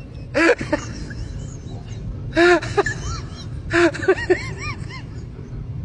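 Small white puppy whining and yowling at close range in short cries that rise and fall in pitch, in three bouts about half a second, two and a half and four seconds in.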